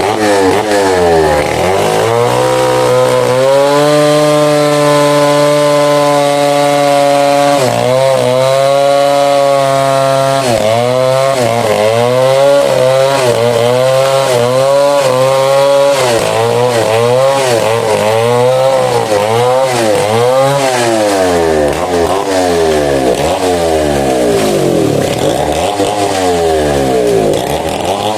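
Two-stroke chainsaw at high revs cutting through a mahogany tree. Its pitch holds steady in long stretches and elsewhere dips and rises again and again as the chain loads up in the wood and recovers.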